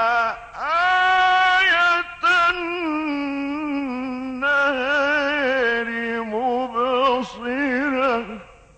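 A man reciting the Quran in the melodic, ornamented mujawwad style: long held notes, then phrases with quick wavering turns in pitch. The voice stops shortly before the end.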